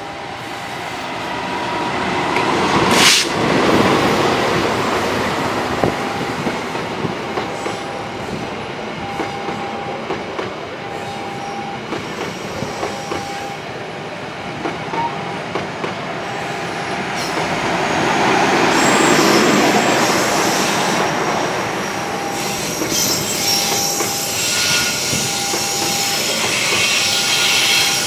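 A diesel locomotive hauling a passenger train passes close by, loudest about three seconds in. Its coaches follow in a long run of wheel clatter, with wheel squeal near the end. A level-crossing warning alarm repeats a short tone about every second and a half.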